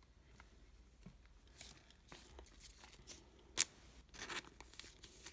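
Trading cards and pack wrapping being handled: scattered soft clicks, a sharp click about three and a half seconds in, then a short stretch of tearing and crinkling of the wrapper.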